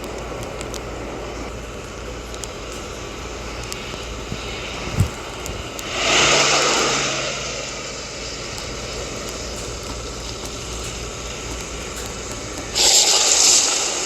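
A steady vehicle-like rumble with a short thump about five seconds in and two louder rushing swells, one about six seconds in and one near the end.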